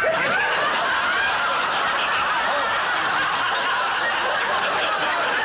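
Studio audience laughing, a sustained crowd laugh at an even level after a punchline.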